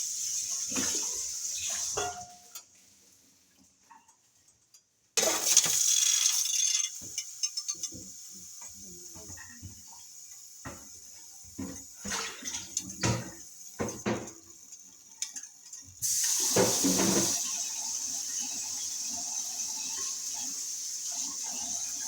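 Kitchen sink tap running during washing up: shut off after about two seconds, turned on again briefly, then a stretch of dishes and utensils clinking and knocking, and the tap opened again with a gush about two-thirds of the way in, running steadily after that.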